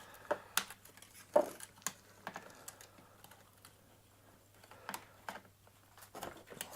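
Irregular light clicks and taps of a flatbed scanner's plastic parts and cables being handled during disassembly.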